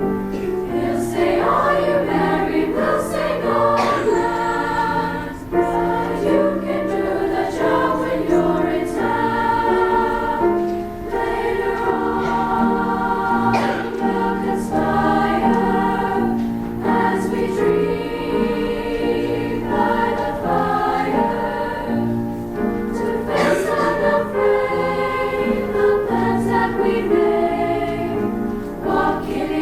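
Women's choir singing in harmony, sustained chords moving from note to note.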